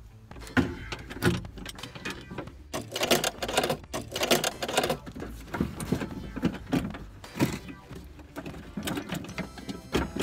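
Irregular metallic clicks, knocks and rattles of hand tools and parts being worked on a power-window regulator inside a car door, as the glass clamp bolts are tightened.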